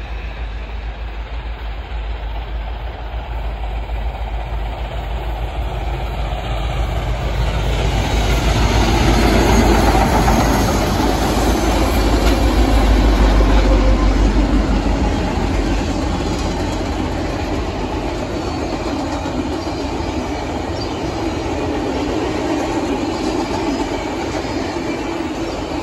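Canadian Pacific 2816, a 4-6-4 Hudson steam locomotive, approaches and passes, loudest around the middle as the engine goes by. Then its passenger cars roll past on steel wheels, with a steady clatter on the rails.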